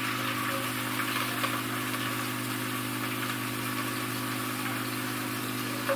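Chopped onion and garlic sizzling in hot oil in a pot, a soft even crackle, over a steady low mechanical hum.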